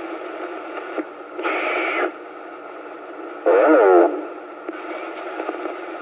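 CB radio receiver hissing with band static between transmissions. The static swells briefly about a second and a half in, and a short garbled, warbling signal comes through around three and a half seconds.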